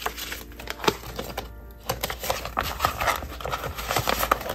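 Paper cash bills being handled, a run of crisp flicks and rustles as the notes are gathered and shuffled.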